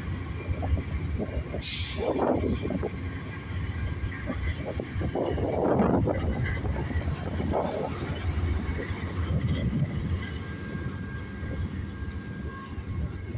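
Amtrak California Zephyr's baggage car and bilevel Superliner coaches rolling past as the train pulls out: a steady low rumble of wheels on rail, with a short burst of hiss about two seconds in.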